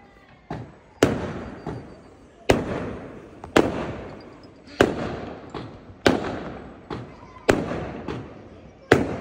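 Aerial fireworks bursting: eight sharp bangs, about one every second and a quarter, each dying away over the following second. The first bang is weaker than the rest.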